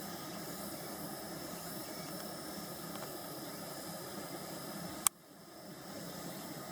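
Nitori fireplace-style electric fan heater running with a steady airy hiss. A single sharp click comes about five seconds in, after which the sound drops away and builds back up within about a second.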